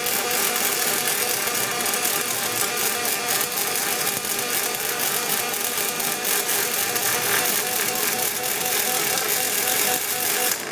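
Lorch MIG-MAG pulse welding arc on stainless steel, a steady crackling hiss with a constant buzzing tone underneath, which cuts off at the very end as the arc stops.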